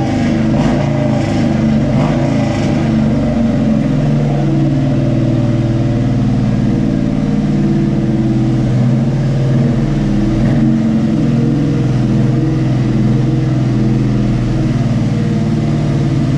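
Car engine idling steadily, its exhaust note even and unchanging.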